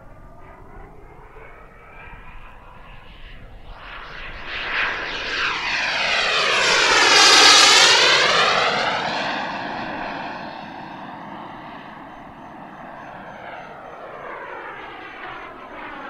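The Jet Central Mammoth turbine of an Xtreme A.R.F. Vixen RC sport jet making a flyby. The jet rush grows louder and brighter to a peak about halfway through as the model passes close, then fades as it flies away.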